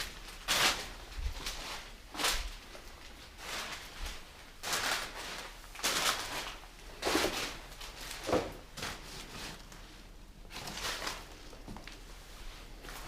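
Footsteps crunching over debris, about one step a second.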